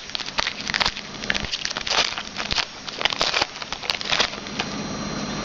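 A foil trading-card pack being torn open and its wrapper crinkled: a run of sharp crackling rustles that stops about four and a half seconds in.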